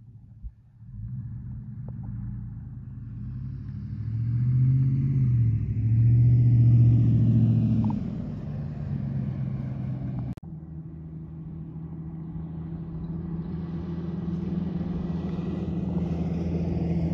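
A car driving. Its engine note rises and falls and is loudest a few seconds in. After a brief drop-out about ten seconds in, a steady engine hum with road noise continues.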